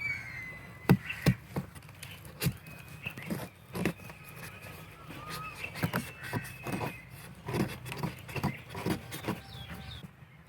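A series of irregular knocks and taps, more than a dozen over the stretch, with faint high chirping or whistling tones between them.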